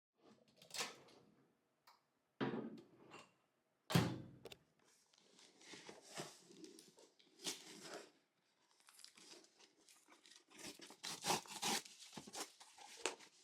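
Packaging being opened by hand: wrapping torn and crinkled, with two knocks about two and a half and four seconds in, the second the louder, and the rustling growing busier toward the end.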